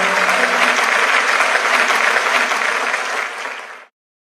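Large audience applauding, a dense, even clatter of many hands clapping, fading out about three seconds in and gone just before the end.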